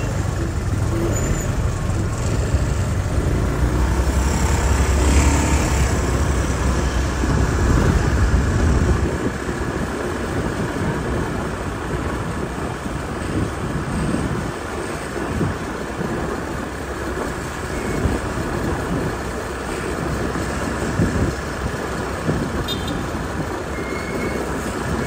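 City street traffic. A deep engine sound close by dominates for about the first nine seconds, then drops away, leaving a steady wash of passing vehicles.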